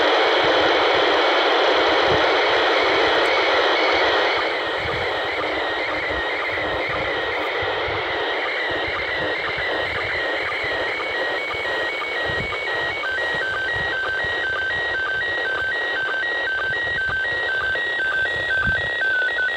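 Slow-scan TV (SSTV) image signal from the International Space Station, in PD mode, received on a handheld FM radio and played through its small speaker: warbling, stepping tones over steady static hiss, the sound of a picture being sent line by line. It gets quieter about four seconds in, and the tones cut off right at the end as the transmission stops.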